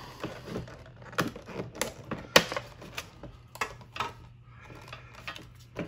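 A clear plastic packaging insert being handled and pried inside a metal Pokémon tin, giving irregular crackles and sharp clicks. The loudest click comes about two and a half seconds in.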